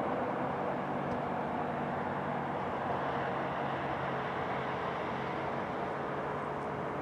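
Jet airliner on final approach heard from a distance: a steady engine drone with a low hum underneath, easing slightly in level.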